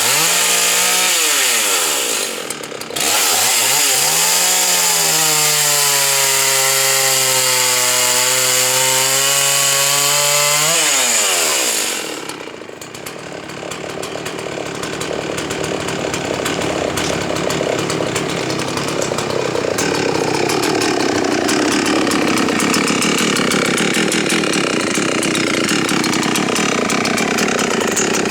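Husqvarna 61 two-stroke chainsaw running hard on a log, its engine note rising and falling for the first dozen seconds. About twelve seconds in the pitch drops sharply, and a rougher, noisier sound of the chain cutting wood follows to the end.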